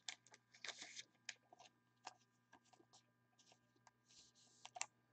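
Faint clicks and rustles of a trading card being handled and slid into a clear plastic card holder, with a short sliding hiss about four seconds in, over a steady faint hum.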